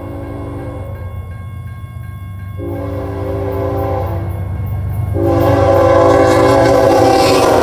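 Air horn of an approaching BNSF freight locomotive sounding a multi-note chord in separate blasts for the grade crossing, the last blast long. Underneath, the low rumble of the train grows steadily louder as it nears.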